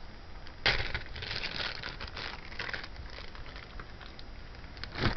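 Small plastic bag crinkling and rustling as a piece of jewelry is worked out of it, starting with a sharp crackle less than a second in and ending with another near the end, with a few sharp clicks among the rustling.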